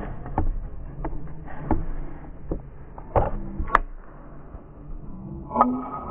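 Quad roller skate wheels rolling on a concrete court, a steady low rumble with scattered knocks. A little under four seconds in comes one sharp click as a skate kicks the screw cap off a large plastic water bottle.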